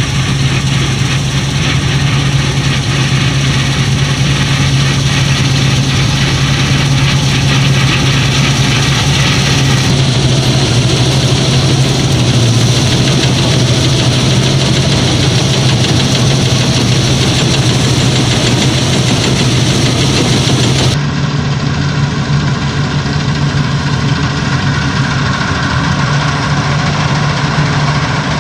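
Fortschritt combine harvesters cutting grain: a steady, loud diesel engine and machinery drone with a strong low hum. The sound changes abruptly about ten seconds in and again about twenty-one seconds in, as it switches from one machine to another.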